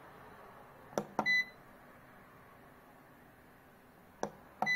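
Control knob of a Xiaomi Smart Air Fryer Pro 4L pressed twice, about a second in and again near the end. Each press gives a pair of sharp clicks and then a short high beep from the fryer confirming the menu selection.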